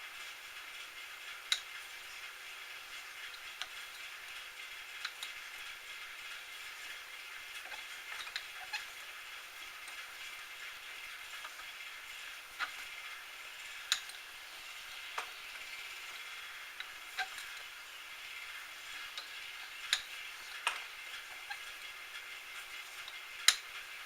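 Small metal lathe running steadily, a hiss with a faint whine, broken by scattered sharp ticks at irregular moments.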